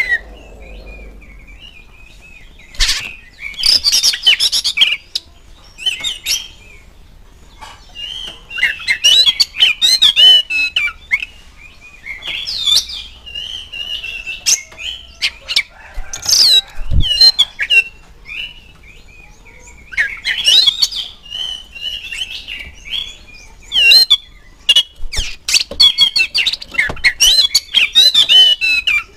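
Oriental magpie-robin (kacer) singing in repeated bursts of rapid, varied whistled and chattering phrases, each a second or two long, with short pauses between them.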